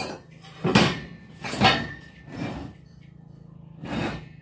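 Sharp knocks of hand work on wood: one strike at the start, three strong ones in an even rhythm about a second apart, then a pause and one more near the end.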